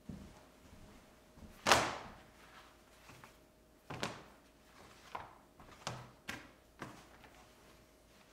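A series of sharp knocks at uneven intervals. The loudest comes about two seconds in, and lighter ones follow between four and seven seconds.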